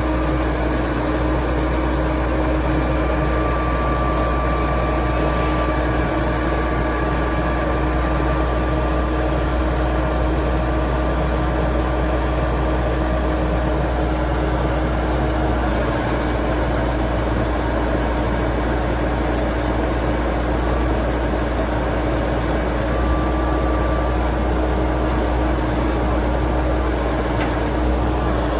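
John Deere 555 crawler loader's diesel engine running steadily at idle, with an even low drone and no change in speed.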